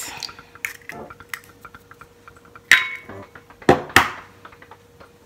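Eggs being cracked over a ceramic mixing bowl: the shell pulled apart, then sharp clicks and clinks of eggshell against ceramic. The loudest click rings briefly about two and a half seconds in, and two more come close together near four seconds, over a faint steady hum.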